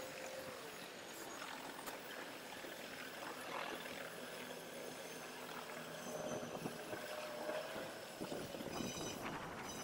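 Faint whine of an electric winch lowering a ham radio beam antenna down the tower, its pitch drifting down and up as it runs.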